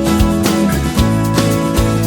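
Upbeat background music with a strummed acoustic guitar and a steady beat.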